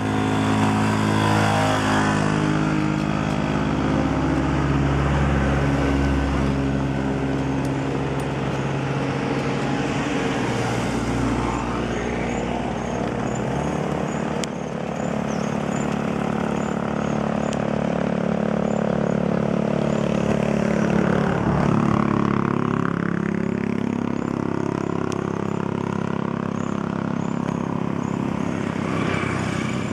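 A motor vehicle's engine running at low road speed. Its pitch changes about halfway through and rises and falls again a few seconds later.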